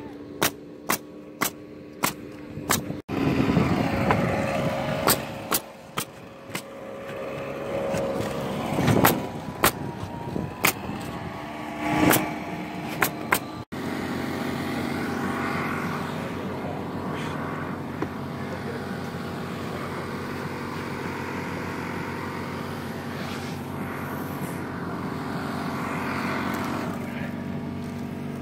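Pneumatic roofing nail gun firing in quick runs of sharp shots, about two a second. About halfway in the shots stop and a steady low motor hum carries on.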